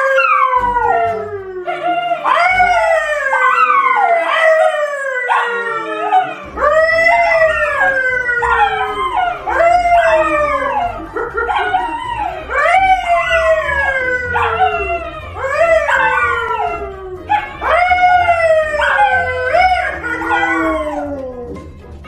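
A brown poodle and a yellow Labrador howling together with a man howling along. The howls come in a long run, about one a second, each sliding down in pitch and often overlapping.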